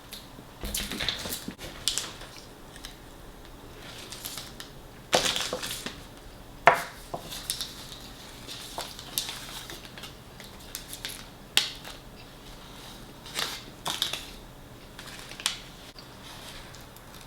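Crunching of crispy fried chicken being bitten and chewed close to the microphone, in irregular bursts with a few sharper, louder crunches scattered through.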